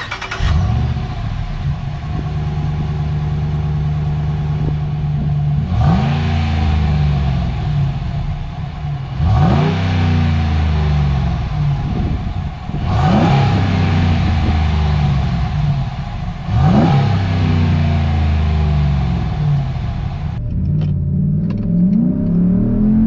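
Stock exhaust of a RAM 1500's 5.7-litre Hemi V8 idling, then blipped four times, each rev rising quickly and falling back to idle. Near the end, the same engine is heard from inside the cab, accelerating on the road.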